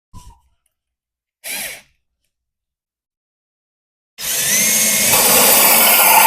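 A drill driving a 4-inch hole saw starts cutting into the entertainment center's top about four seconds in: loud and continuous, with a wavering whine over the grinding noise. Before that, only a brief rustle about a second and a half in.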